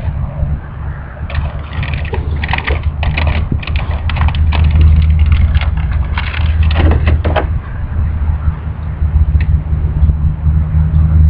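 Crinkling and crackling of a cigarette pack's cellophane wrapper being opened by hand, in a dense run of small crackles from about one to seven seconds in, over a steady low rumble. A single click comes near the end as a lighter is struck.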